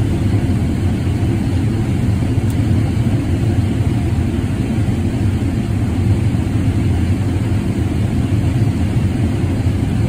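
John Deere combine running steadily while harvesting corn, heard from inside the cab as a steady low rumble.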